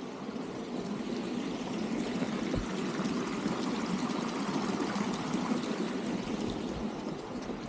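Running water from a water-garden fountain, a steady rushing flow that grows louder about two seconds in and eases slightly near the end.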